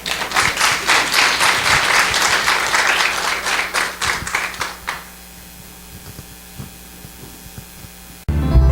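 Congregation applauding for about five seconds, then the clapping dies away.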